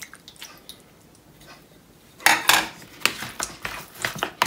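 A spatula knocking and scraping in a plastic mixing bowl as raw chicken pieces are tossed with spices and lemon juice. It comes as a quick run of strokes starting about two seconds in, with only a few faint clicks before.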